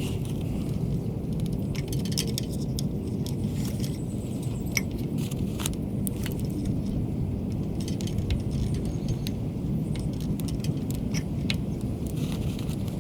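Light metallic clicks and clinks of hand-tool work on an electrical receptacle, scattered irregularly over a steady low rumble.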